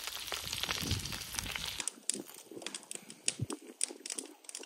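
Nachos sizzling and crackling in a cast-iron Dutch oven for about the first two seconds. The sound then changes abruptly to sparse crisp crinkles and crackles of tortilla chips being pulled from the pot by hand.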